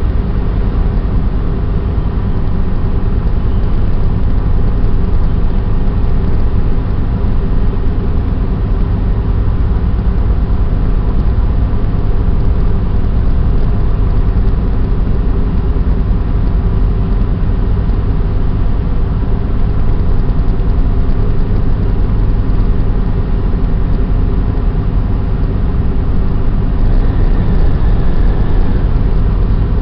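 Ship's machinery running with a steady low drone and several held hums, unchanging throughout.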